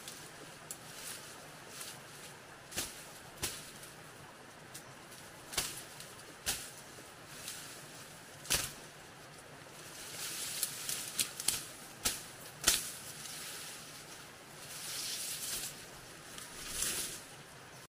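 Irregular sharp snaps and knocks, more than a dozen, with bursts of rustling in the second half.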